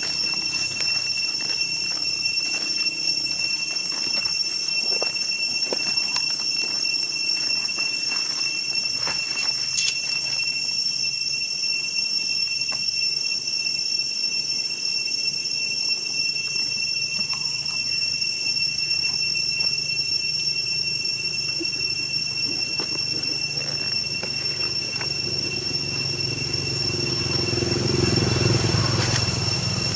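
Steady high-pitched drone of insects, one unbroken whine held at the same pitch throughout, over faint scattered clicks and rustles. A low rumble swells near the end.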